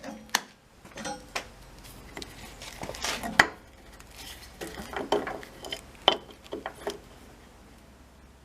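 Hard objects being handled: a string of irregular clinks and knocks, the sharpest about three and a half seconds in, over a faint low hum.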